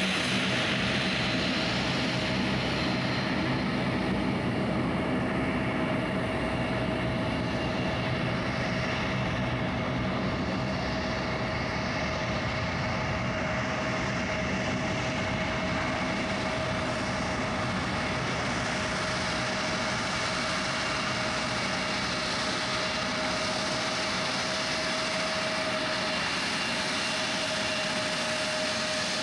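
Airbus A330-243 jet engines during the landing roll-out on a wet runway: a steady, even rush of engine noise with a constant whine held throughout.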